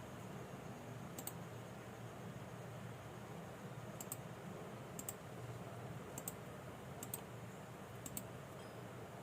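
Six sharp button clicks, each a quick press-and-release pair, spaced a second or so apart over a low steady hum.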